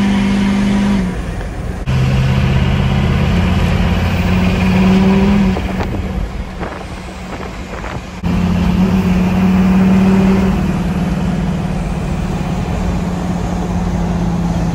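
An LLY Duramax 6.6-litre turbo-diesel V8 in a Chevrolet dually pickup, heard from inside the cab as the truck accelerates. The engine note climbs in pitch twice as it pulls, with quieter lulls between the pulls.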